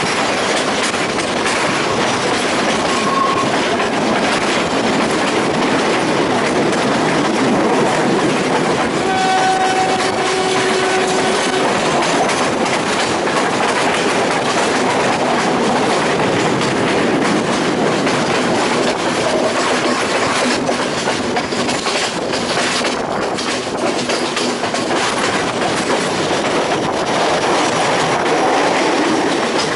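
Sri Lankan passenger train running along the line, heard from an open carriage window: the steady running noise of wheels and carriages on the rails, with sharp clicks in the second half. A steady pitched tone sounds for about two seconds about ten seconds in.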